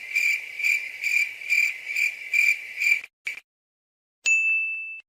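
Cricket chirping, the awkward-silence meme sound effect: a high, even chirp repeating about three times a second, cut off after about three seconds. Near the end comes a short, clean high beep that stops abruptly.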